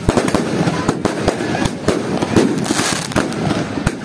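Aerial fireworks going off in rapid succession: a dense run of bangs and crackles with no break.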